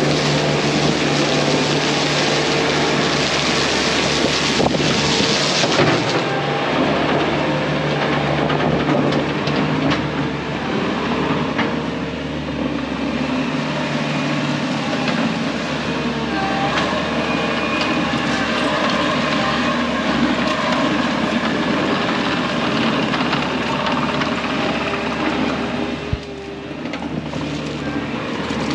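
Bobcat T630 compact track loader's diesel engine running steadily, with a constant rattle and scrape from its tracks and the gravel being spread. The sound eases briefly near the end.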